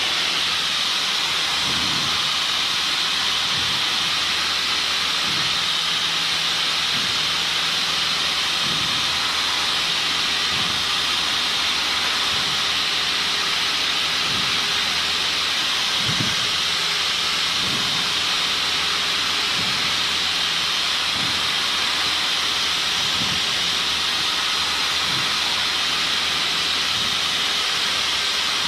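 Cessna 152 cabin noise in cruise: a steady loud hiss of engine and airflow, with the four-cylinder Lycoming engine's drone underneath and soft low pulses about every two seconds.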